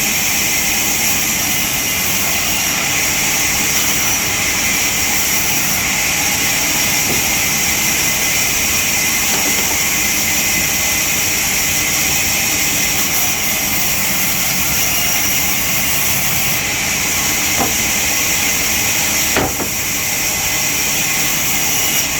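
Sawmill saw running with a steady, high hiss, with a couple of sharp knocks near the end.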